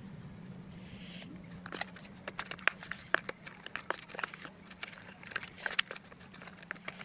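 Homemade slime being worked by hand, giving an irregular run of small crackling clicks and pops that start about two seconds in. The slime is stiff and breaks apart as it is pulled.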